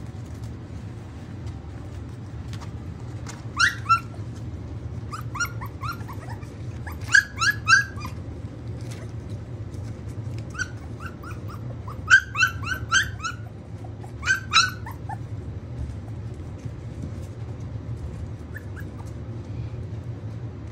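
Akita puppies yipping and whimpering in short high-pitched clusters of two to four yelps, about six clusters, starting a few seconds in and stopping about three-quarters of the way through. A steady low hum runs underneath.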